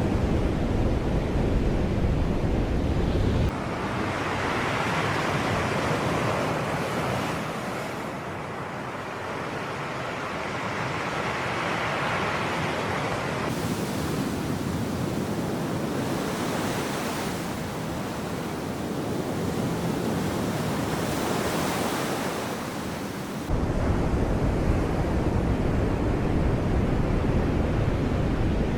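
Sea surf washing ashore, waves swelling and falling away every few seconds. A heavy low rumble of wind on the microphone fills the first few seconds and returns for the last few, cutting off and back in abruptly.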